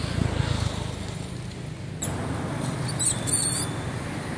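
A young macaque giving short, high-pitched squeaks about three seconds in, over a steady low background rumble.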